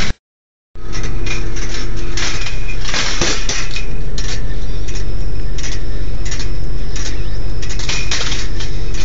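Stainless steel rolling ball sculpture running: steel balls clicking and rattling along the wire tracks, with metallic clinks and a few short ringing tones, over a steady low hum from the motor-driven spiral lift. The sound cuts out for about half a second just after the start.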